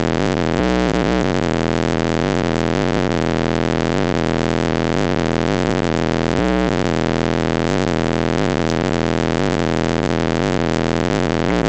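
JL Audio 13W7 subwoofer, powered by a 2500-watt amplifier in the truck cab, playing bass-heavy music very loud, overloading the phone microphone into a distorted, buzzing wall of sound.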